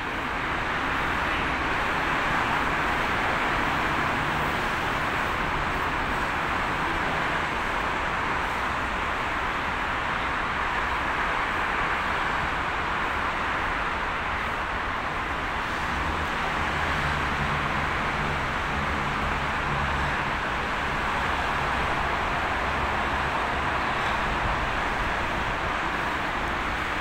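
Steady background roar of road traffic, with a low engine hum that swells for a few seconds past the middle.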